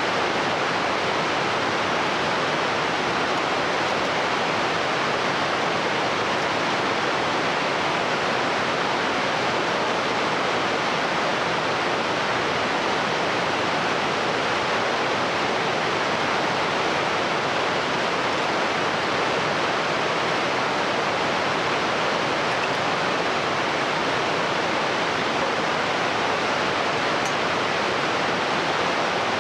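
Glacial meltwater stream rushing steadily.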